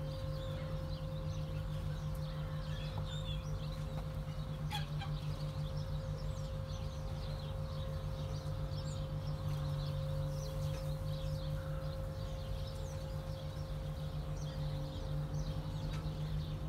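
A flock of ring-necked and green pheasants in a pen giving scattered short, high chirps and soft calls, over a steady low hum.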